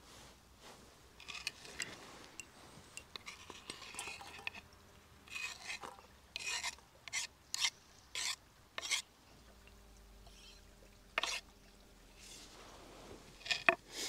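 Kitchen utensils and cookware being handled while food is prepared: a run of short scrapes, rubs and sharp clicks at irregular intervals.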